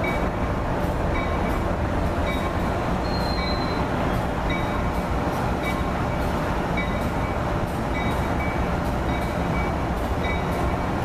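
NJ Transit commuter train's coaches rolling slowly past as the train pulls out, a steady rumble with a hum and faint regular clicks of the wheels over the track.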